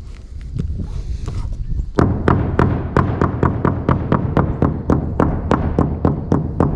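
Hammer striking the plywood roof decking in a steady rhythm, about three sharp blows a second, beginning about two seconds in after a few lighter taps.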